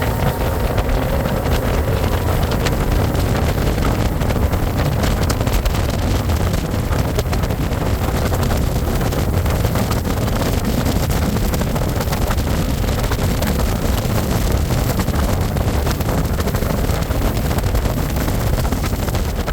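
A boat running steadily on open water under outboard power, with wind buffeting the microphone.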